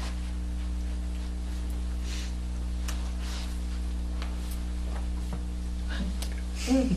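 Steady low electrical hum of room equipment, with faint scattered rustles and a brief voiced sound near the end.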